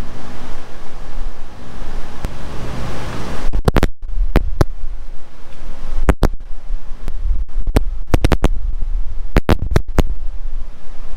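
Scratchy rubbing for about three and a half seconds, then scattered sharp clicks and knocks, the sound of metal engine parts and tools being handled on a workbench. A shop fan hums steadily underneath.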